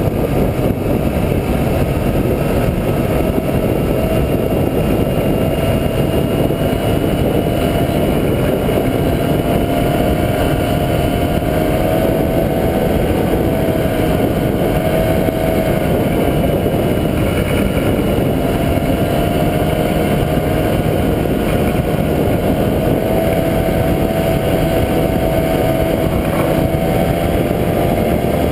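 Rotax 503 two-cylinder two-stroke engine of an ultralight trike running steadily in flight, heard from on board. A loud, even drone whose pitch wavers slightly.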